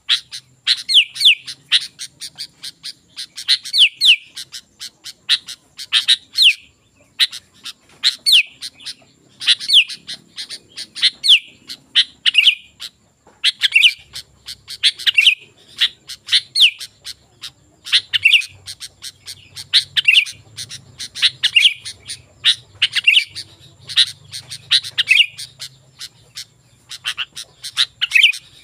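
Sooty-headed bulbul (kutilang) singing on and on: short, repeated phrases of quick falling notes, about one phrase every second and a half.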